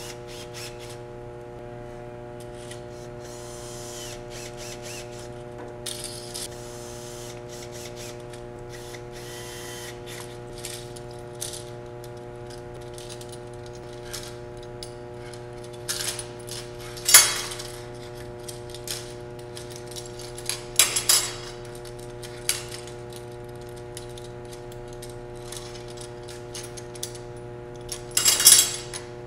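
Metal corner clamps being handled on a metal workbench: scattered small clicks and rattles as their screw handles are turned, with a few louder sharp clanks in the second half. A steady low hum runs underneath.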